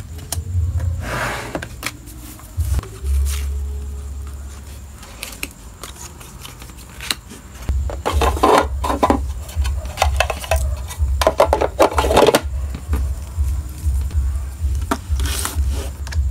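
Small packing items being handled: plastic packets and cards rustling and scraping in several short bursts, busiest in the second half, over a low, even pulsing underneath.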